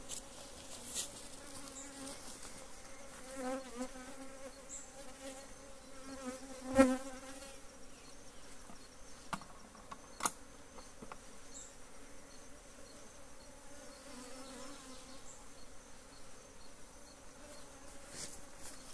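Honeybees buzzing around opened wooden hive boxes, a steady hum, with a few sharp knocks as the hive parts are handled, the loudest about seven seconds in.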